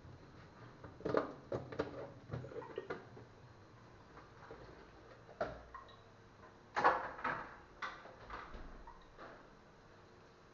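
Plastic food containers and lids knocking and clattering as they are handled: one is pulled from a refrigerator shelf, then its lid is taken off and set down, with the loudest clatter a little past the middle.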